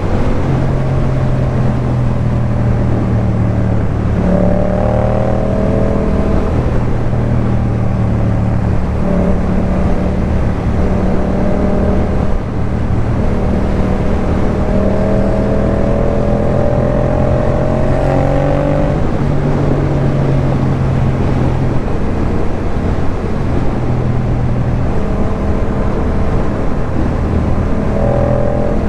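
Yamaha MT-07's parallel-twin engine through a Jeskap K4 full exhaust, under way and pulling through the gears. The pitch climbs and then drops several times as it accelerates and shifts.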